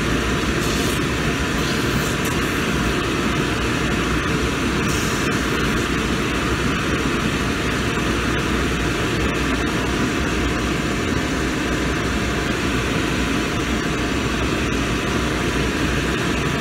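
Cobbler's shoe finishing machine running steadily: the motor and spinning wheels make a constant loud whir, with the edge of a boot's rubber sole being sanded on a fine finishing wheel at the start.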